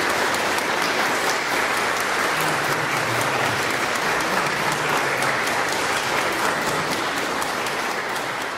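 Large arena crowd applauding and cheering, a dense, steady wash of clapping.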